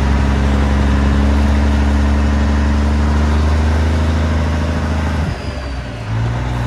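Peterbilt semi truck's diesel engine pulling a loaded cattle trailer, a loud, steady low drone. About five seconds in the note breaks off and comes back at a lower pitch, then holds steady.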